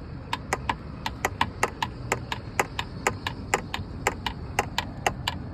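Irregular sharp knocks, about four a second, from inside the driver door of a 2024 Ford Bronco, over a low road rumble. It is a loose part dangling inside the door panel and banging back and forth.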